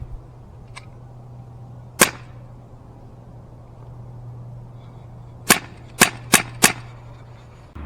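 Umarex UX 357 CO2 revolver firing: one sharp pop about 2 seconds in, then four more in quick succession near the end, with a faint click before the first. The cylinder's cartridges were not loaded, so these are gas shots without BBs.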